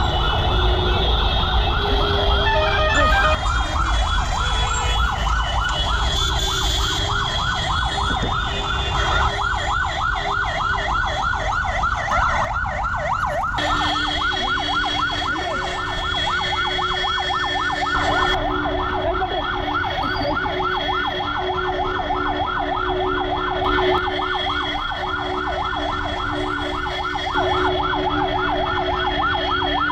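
Ambulance siren on a fast yelp: a rapid rising-and-falling wail repeating several times a second without a break, over a low rumble of road traffic. A steady hum joins about halfway through.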